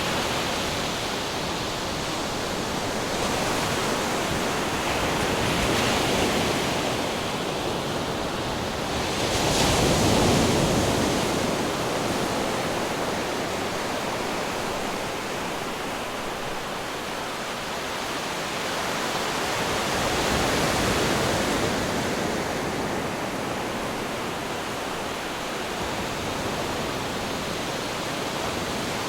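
Ocean waves breaking on rocks: a continuous rushing surf that swells and ebbs, with the biggest wave crashing about ten seconds in and smaller swells about six and twenty-one seconds in.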